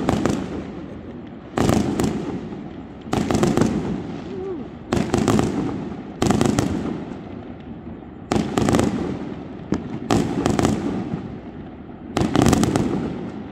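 Fireworks going off: about nine sharp booms, roughly one every one and a half seconds, each trailing off in a rumbling echo.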